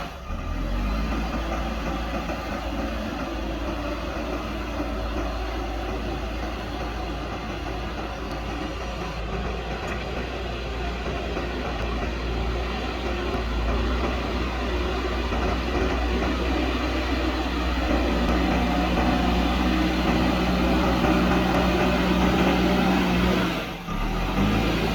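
Diesel engine of a JCB backhoe loader running under work load as it digs and loads soil, a continuous low rumble. It grows louder and steadier in the later part, and cuts out briefly near the end.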